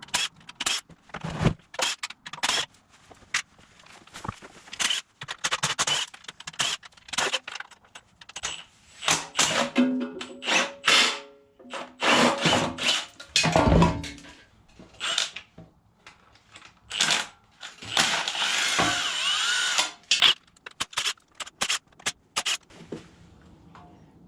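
Handheld power tool run in many short bursts, spinning bolts out of the LS engine's front end, among sharp metal clanks of tools and parts. Late on, the tool runs for a couple of seconds at a stretch.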